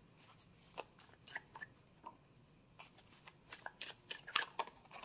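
A deck of tarot cards being shuffled by hand, overhand: an irregular patter of soft card slaps and flicks, busiest between about three and a half and four and a half seconds in.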